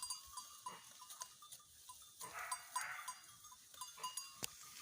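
Goats browsing in brush, faintly bleating amid light rustling and repeated small clinks, with one sharp click near the end.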